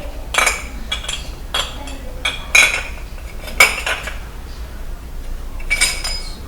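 Dishes and cutlery clinking and clattering as they are stacked and fitted together, in separate clinks about every second, with a lull of about a second and a half before a last clatter near the end.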